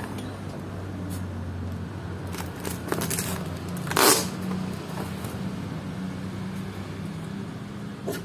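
A delivery package being opened: handling clicks and rustles, then one loud, short rip of packaging about four seconds in, over a steady low hum.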